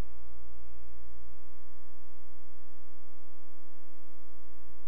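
Loud, steady electrical mains hum, a low buzz with a dense stack of overtones at an even level throughout.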